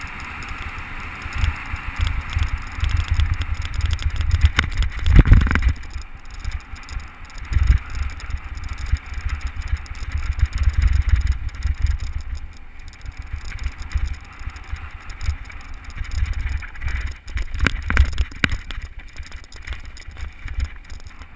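Mountain bike ridden fast over a dry, loose trail of pebbles on sand: wind buffeting the microphone with a low rumble, tyres crunching over gravel and the bike rattling over bumps. There are sharp knocks about five seconds in, and a cluster of clattering knocks around seventeen to eighteen seconds in, where the bike nearly goes down on the loose pebbles.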